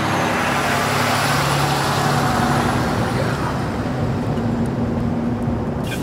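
A road vehicle driving past on a paved road: engine and tyre noise swell over the first second or two, then slowly fade as it moves away.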